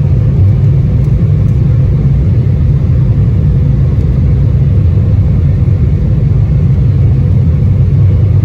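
Steady low rumble inside the cabin of an Embraer 175 regional jet, its engines and wheels on the ground in the last half-minute before liftoff.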